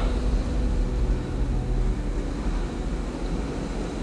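Wind buffeting the microphone over the steady wash of surf breaking on the shore, easing off slightly toward the end.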